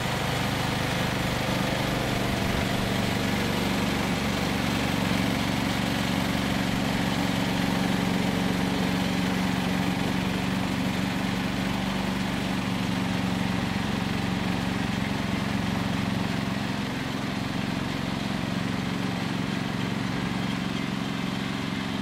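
Portable band sawmill (Range Road RR5029) running, its engine under steady load while the band blade cuts lengthwise through a log: an even engine drone with the hiss of the cut, easing slightly near the end.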